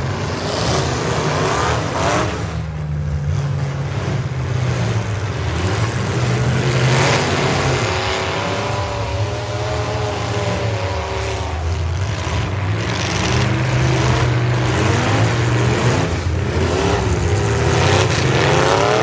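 Several demolition derby trucks' engines running and revving hard at once, their pitch repeatedly rising and falling.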